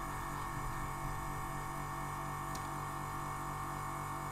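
Airbrush compressor running with a steady hum and a fine, even pulsing.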